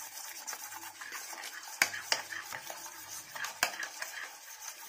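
A metal spoon stirring a thick, wet marinade paste of spices and curd in a stainless steel bowl, scraping steadily, with a few sharp clinks of the spoon against the bowl: two just before and after two seconds in, one at about three and a half seconds.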